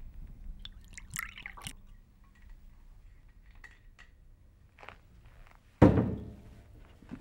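Liquor poured from a glass bottle into a glass tumbler, a short splash about a second in. About six seconds in comes a sudden heavy thump, the loudest sound, dying away over about a second.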